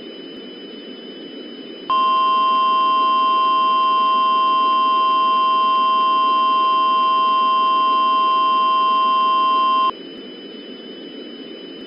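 Emergency Alert System attention signal: a loud steady tone held for about eight seconds, starting about two seconds in. Before and after it there is a hiss with a faint high whine.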